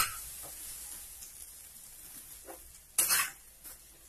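Shallots, tomatoes and spice powders sizzling in a frying pan while a steel spoon stirs and scrapes them. A sharp clack of the spoon on the pan comes at the start, the sizzle fades, and a louder scrape comes about three seconds in.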